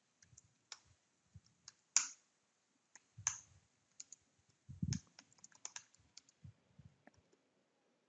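Typing on a computer keyboard: faint, irregular key clicks, with a sharper keystroke about two seconds in, another just after three seconds, and a quick run of keystrokes around five seconds.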